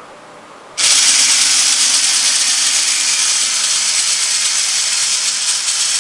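Small wheeled robot's drive motors running as it drives forward the commanded 32 cm: a loud, steady, hiss-like whir that starts abruptly about a second in.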